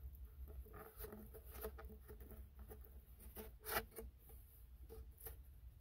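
Faint, irregular scraping and crunching of a cardboard tube as a pointed tool is worked into its side to widen a hole, with the loudest crunch just under four seconds in.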